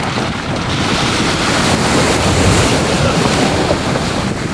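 Vehicle fording a flooded creek crossing: a loud, steady rush of water surging and splashing against the body, a little louder around the middle.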